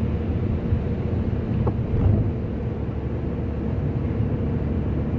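Steady low rumble of a car driving at highway speed on wet asphalt, engine and tyre noise heard from inside the cabin.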